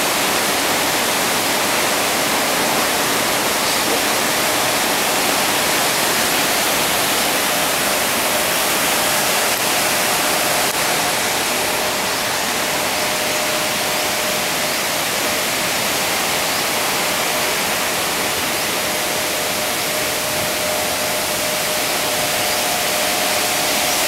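Steady rush of water from a large waterfall and rapids, with a faint thin steady tone joining about ten seconds in.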